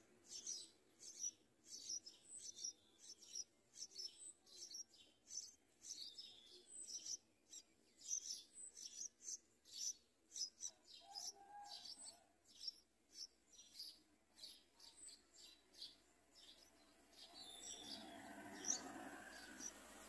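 Bulbul nestlings begging for food: rapid, high-pitched chirps, several a second, thinning out after about sixteen seconds.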